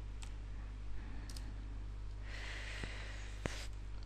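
A few faint computer keystrokes, a soft hiss for about a second, then a single sharp click near the end, likely a mouse button, all over a steady low electrical hum.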